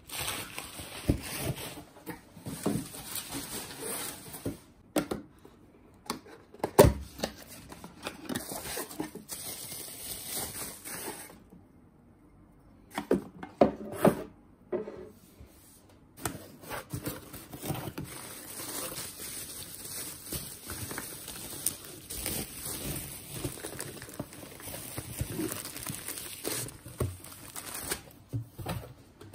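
Parcels being unpacked by hand on a table: cardboard and plastic packaging crinkling, rustling and tearing, with irregular light knocks as items are set down, the loudest about seven seconds in. There is a quieter pause around the middle.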